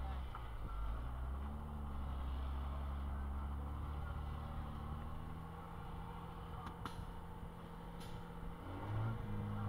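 IVECO trial truck's diesel engine running at low revs, heard from inside the cab, with a steady low hum; about nine seconds in the revs pick up. A few faint clicks near the end.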